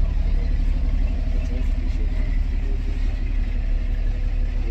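Diesel engine of a Unimog off-road bus running, a steady low rumble heard from inside the passenger cabin.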